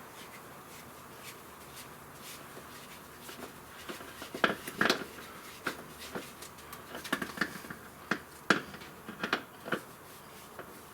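Irregular clicks and knocks of tools and parts being handled during oil-change work. They start about four seconds in, with a cluster of louder knocks near the middle and more toward the end.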